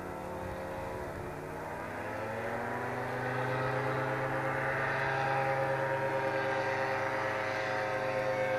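Paramotor (powered paraglider) engine and propeller droning at a near-steady pitch, growing louder about three seconds in.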